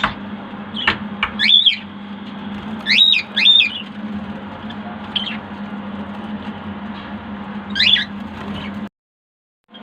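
White birds giving short, harsh squawking calls, about five of them, spaced irregularly, over a steady low hum. The sound cuts out abruptly near the end.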